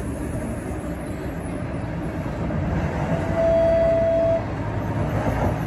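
A TTC Flexity Outlook streetcar standing at a stop, heard from inside the car: a steady low hum from the car. A single steady beep sounds about three seconds in and lasts about a second.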